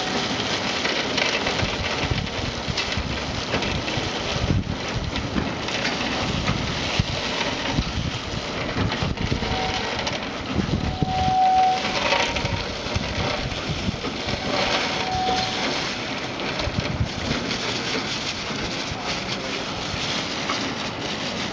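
Raw peanuts rattling as they are poured from a bag onto the stainless-steel infeed of a running continuous mesh-belt deep fryer, over the machine's steady running noise. A short high squeal sounds a few times.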